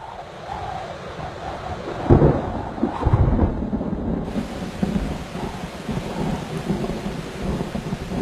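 Thunderstorm: thunder rumbling, loudest in two heavy claps about two and three seconds in, with a steady hiss of rain coming in from about four seconds on.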